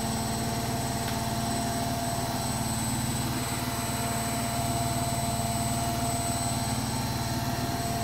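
Indesit front-loading washing machine running near the end of its cycle: a steady, even drone with a strong low hum and a thin steady whine above it.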